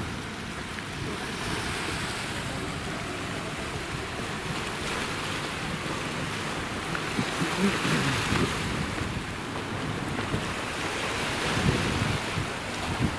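Sea surf washing onto the shore, swelling louder twice, with wind buffeting the microphone.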